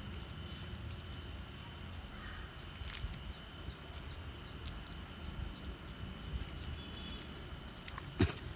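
Water from a garden hose splashing onto a freshly poured concrete roof slab, which is being kept wet to cure. Under it is a low rumble and a faint steady high whine, and there is a sharp knock near the end.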